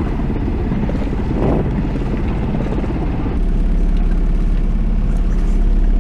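A sailboat's auxiliary engine running steadily under motor, a low even drone; about three and a half seconds in it turns steadier and deeper.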